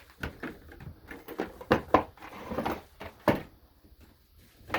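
Drill bit turned by hand in a metal hinge's countersunk screw holes, scraping out old paint, with irregular scrapes and several sharp clicks.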